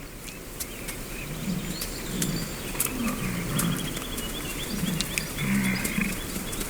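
American bison calling with short, low calls, repeated about once a second.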